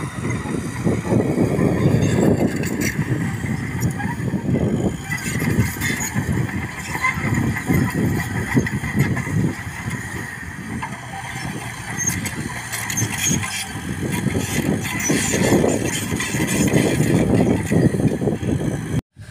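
Bulldozer's diesel engine working, its sound swelling and easing again and again as the load changes, with scattered knocks over it.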